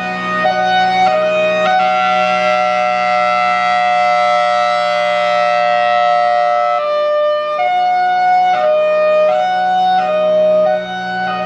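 Federal Signal Thunderbolt 1003 outdoor warning siren sounding its hi-lo alert, very loud: two pitches alternating about every three-quarters of a second, with the pattern holding steady for about five seconds in the middle before the alternation resumes.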